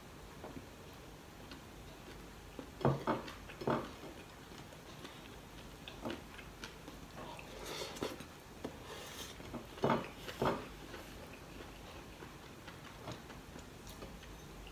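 Scattered clicks and smacks of a person eating rice with his fingers, chewing and picking food from a plate. The loudest clicks come in a quick cluster about three seconds in and as a pair about ten seconds in.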